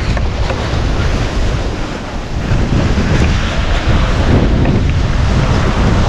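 Wind buffeting the camera's microphone in an uneven, rumbling rush, with surf washing onto the beach beneath it.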